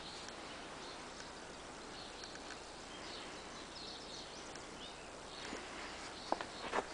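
Quiet outdoor background with faint, scattered bird chirps, and two sharp knocks about half a second apart near the end; the power hammer itself is not running.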